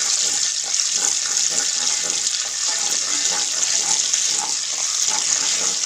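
Ginger paste sizzling as it fries in hot sunflower oil in a pan: a steady sizzling hiss.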